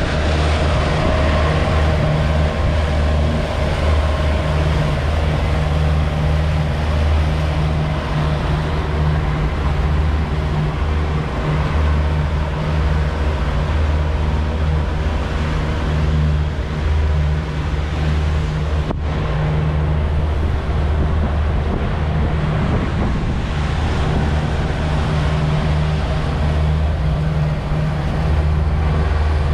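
Twin Yamaha F200 four-stroke outboard engines running steadily with the boat under way: a low, even drone. The rush of the wake and wind noise run beneath it.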